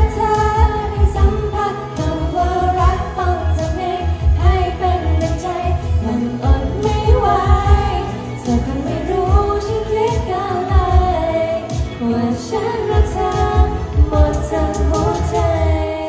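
Thai pop song with a female vocalist singing over a steady bass-heavy beat.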